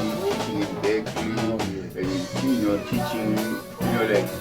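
Band music with guitar, full and steady, with what may be voices in the mix.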